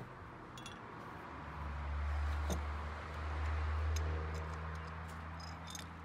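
Light metallic clicks of open-end wrenches working on a hydraulic hose JIC fitting and quick coupler as it is tightened. Under them is a low hum that swells about one and a half seconds in and is loudest through the middle.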